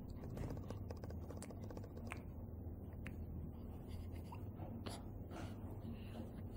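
Faint rustling and scattered soft clicks over a steady low hum, from a newborn stirring and waving his arms on soft crib bedding.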